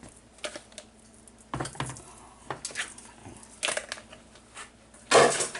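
Kitchen items being handled on a counter: scattered light clicks and knocks of dishes and utensils, with one louder clatter near the end.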